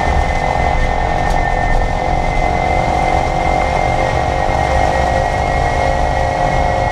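2022 Kia EV6 front drivetrain whirring while the car drives: a steady whine over low road rumble. The owner hears this mechanical noise in Eco and Normal mode around 28–30 mph, and finds it goes away when i-Pedal brings the front motor into play.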